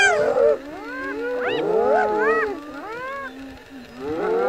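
A crowd of spotted hyenas calling over one another: many overlapping calls that each swoop up and back down, close together throughout, as the pack mobs lions on a kill.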